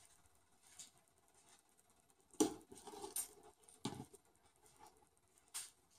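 Thick dal coming to the boil in an open pressure cooker, faint scattered pops and blips, the loudest about two and a half seconds in.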